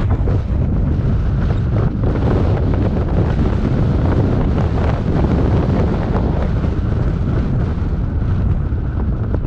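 Steady wind buffeting the microphone over the low rumble of a Land Rover Discovery 2 driving a dirt trail.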